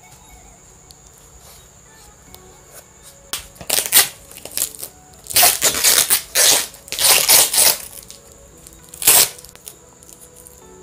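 Plastic packaging being torn and crumpled by hand, in loud crinkling, ripping bursts: one about four seconds in, a longer run from about five to eight seconds, and a last short one near nine seconds.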